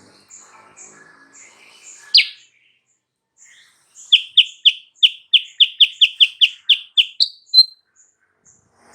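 Kutilang sutra singing: a single rising note, then a fast run of about fourteen short, down-slurred whistled notes that speed up and close on a higher note, with faint high chirps behind.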